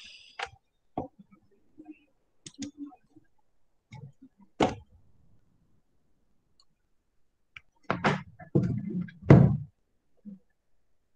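Handling noise at a computer desk: scattered clicks and knocks, with a cluster of louder thumps about eight seconds in.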